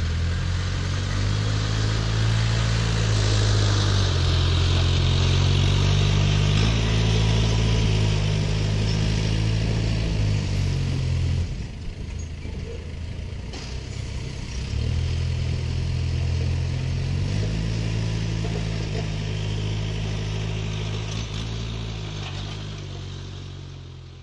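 Heavy diesel engine running under changing load, its pitch stepping up and down several times. It drops back for a few seconds about halfway through, then picks up again before fading out near the end.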